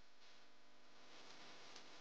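Near silence: faint room tone with a couple of faint ticks.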